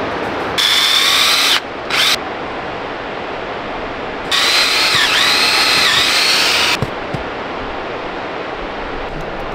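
Power drill boring a taphole into a sugar maple trunk: a one-second run of whine and a short blip, then a longer run of about two and a half seconds whose whine dips in pitch twice.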